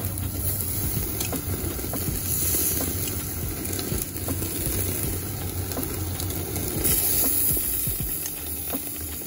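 Beef kalbi sizzling on a tabletop yakiniku grill as slices are laid on with metal tongs, with light clicks of the tongs throughout. A steady low hum runs underneath.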